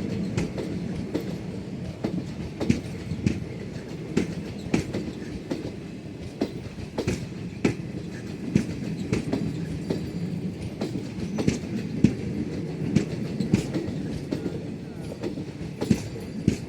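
Indian Railways passenger coach wheels running on the track: a steady low rumble with frequent sharp clicks as the wheels pass over rail joints.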